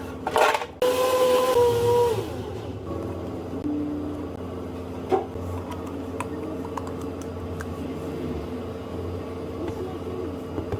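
Café counter work sounds: a loud hiss for about two seconds near the start, then a steady machine hum with a few light clicks and clinks.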